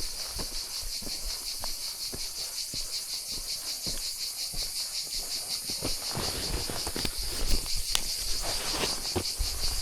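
Insects chirping in a fast, even pulsing rhythm. Scattered clicks and crunches sound over it, and there is low rumbling near the start and end.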